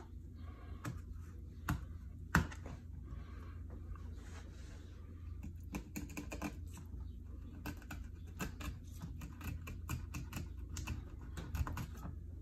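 Kitchen knife working along a trout's backbone on a plastic cutting board, giving irregular small clicks and ticks as the blade meets bone and board. The clicks are sparse at first and come quickly, one after another, from about halfway on, over a steady low hum.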